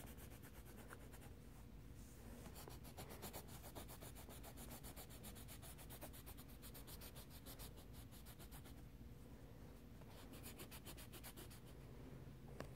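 Faint scratching of a coloured pencil on paper: quick, repeated back-and-forth colouring strokes.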